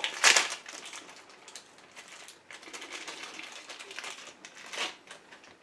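Plastic packaging rustling and crinkling as a small item is handled, with a sharp crackle just after the start and another shortly before the end.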